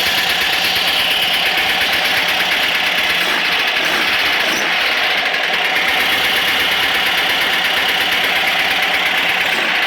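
Engine running steadily with a fast, even knocking, which the owner suspects is rod knock.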